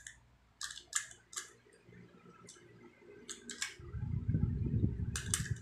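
Sharp metallic clicks from a hand riveter as its handles are squeezed and its jaw mechanism snaps, about eight clicks at uneven intervals. A low rumble of handling noise joins in over the last couple of seconds.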